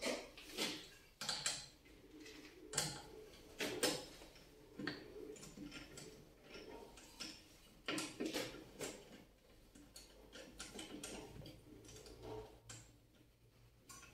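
Intermittent light clicks and knocks at irregular spacing, one or two a second at times, with quieter gaps in between.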